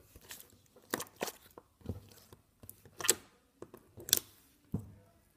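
Thick, clicky slime being squeezed and poked by hand, making a string of sharp clicks and pops at uneven intervals, the loudest about three and four seconds in.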